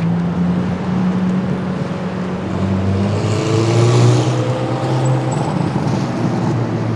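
Car engines running with a steady low note; about three seconds in, a car engine rises in pitch under acceleration, loudest about four seconds in, then settles.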